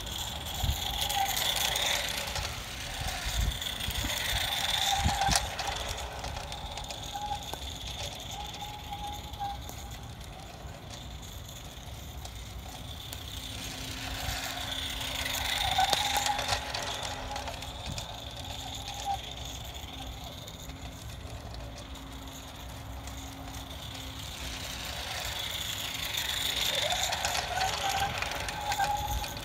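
Accucraft Ruby live-steam G-scale locomotive and its short train running laps on outdoor track: wheels clattering over the rails with a ringing tone, growing louder each time the train passes close, about every twelve to thirteen seconds, over a steady low rumble.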